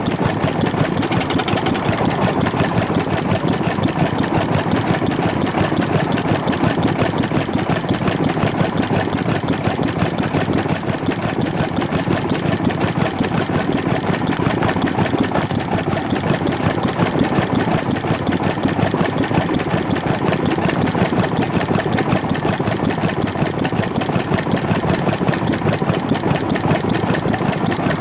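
A single-cylinder vintage stationary farm engine runs steadily with a fast, even beat while belching thick smoke. It is a poorly maintained, 'sick' engine.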